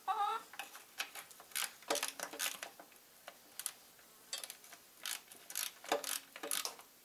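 Hand ratchet wrench clicking in short, irregular runs of quick clicks as bolts are turned on the engine.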